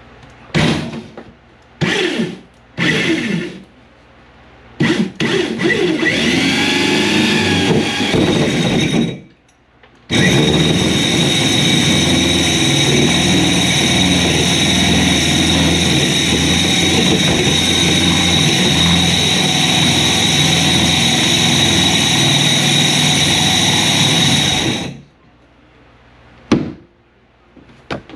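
Power drill boring through the garage wall for the mini-split line-set hole. It starts with a few short trigger bursts, then a longer run that speeds up, then one long steady run with a constant high whine of about fifteen seconds that cuts off suddenly. One more short burst comes near the end.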